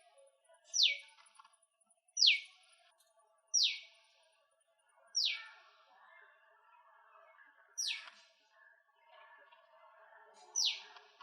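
A bird repeating a loud, short, high call that slides down in pitch, six times, about every one and a half seconds with a longer pause before the last, over fainter, lower bird chatter.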